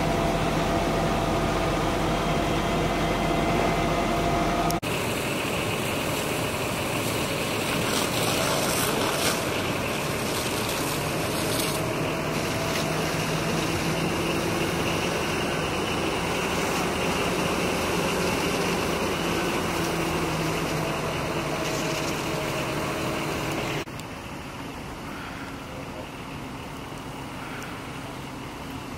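Fire engine running steadily as it pumps water, with the hissing rush of the hose stream over it. The level drops about 24 seconds in, leaving a quieter steady engine rumble.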